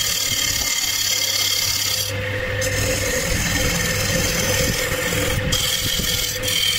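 Wood lathe spinning a wooden disc while a hand-held chisel cuts into its face: a steady scraping hiss of wood being turned over the low hum of the lathe. The high scraping lets up briefly twice, about two seconds in and again past the middle, as the cut eases.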